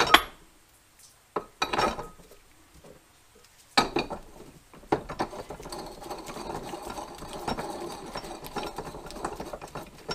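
Metal tool parts knocking on a workbench, a sharp knock at the start and two more over the next four seconds, then a steady rattling and ticking of metal on metal as a part is spun down the threaded centre shaft of a mini tire changer.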